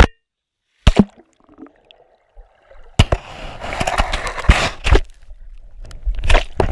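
Sea water sloshing and splashing around a camera in the surf, starting about three seconds in with several sharp knocks among the wash. Before that, near silence broken by one sharp knock about a second in.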